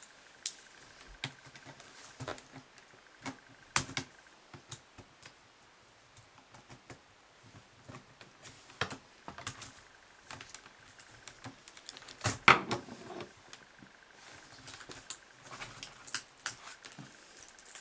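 Plastic clicks and snaps as a laptop keyboard is pried free of its retaining lugs with a flat-head screwdriver, with the keys rattling. The clicks come irregularly, and the loudest cluster of snaps is about twelve seconds in.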